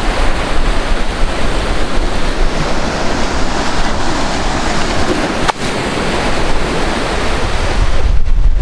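Ocean surf washing in as a loud, steady rush of noise, with wind buffeting the microphone. A single sharp click comes about five and a half seconds in.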